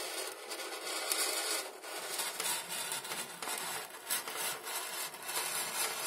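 Utility knife blade slicing through 5 mm XPS foam board, a noisy scratching drag in uneven strokes.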